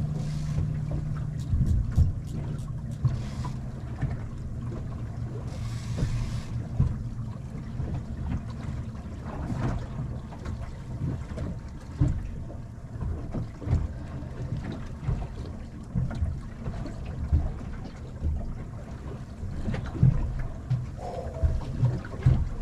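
Irregular knocks and thumps aboard a small fishing boat at anchor, over a low steady hum that steps down in pitch in the first few seconds.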